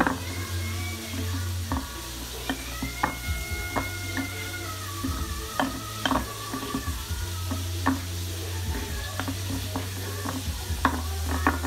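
Wooden spoon stirring and folding a thick, wet salad mixture in a glass bowl, with irregular clicks and knocks where the spoon hits the glass. A steady low hum runs underneath.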